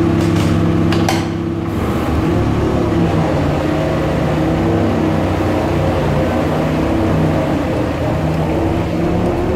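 Zamboni ice resurfacer running steadily, with a steady low mechanical hum. A few sharp clicks and rattles come in the first second or so.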